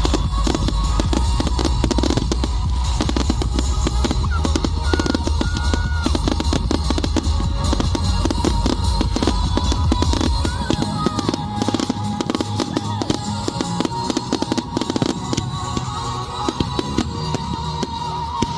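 Fireworks display: a dense run of rapid crackles and bangs over loud music with drums. A deep rumble drops away about ten seconds in.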